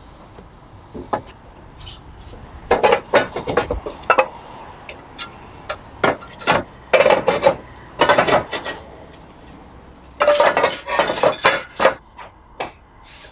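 Roof tiles clinking and knocking against each other as they are handled and set into place on the roof. The clinks come in several short irregular clusters with quieter gaps between them.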